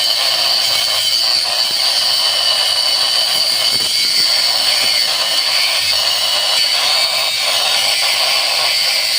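Chopper (shredding) machine running steadily and loudly, a dense whirring with a constant high whine.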